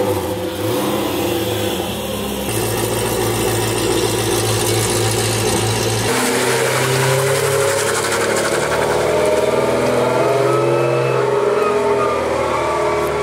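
LS V8 engine of a swapped BMW E30 running and revving, its pitch shifting a couple of times, with a hiss of noise over it.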